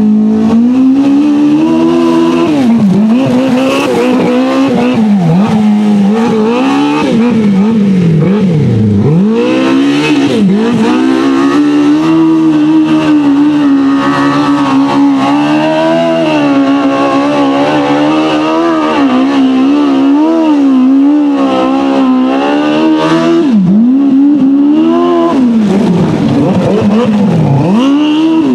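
Polaris RZR side-by-side powered by a swapped-in Yamaha Apex snowmobile four-cylinder four-stroke engine, revving hard under load in mud. The pitch climbs and falls over and over, with several sharp drops off the throttle followed by quick climbs back up.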